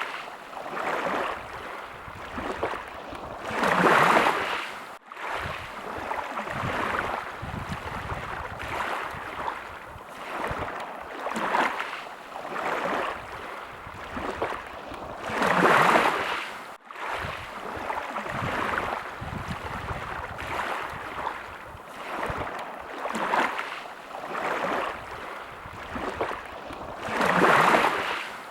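Sea waves washing in, a steady rushing hiss that swells into three big waves about twelve seconds apart, with smaller waves between. The sound cuts out abruptly for an instant twice.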